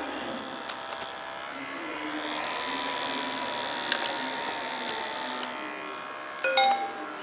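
IBM ThinkPad T43 laptop whirring steadily, its fan and hard drive running, with a few light clicks. About six and a half seconds in, a short chime of several tones from the laptop's speakers: a Windows XP system sound.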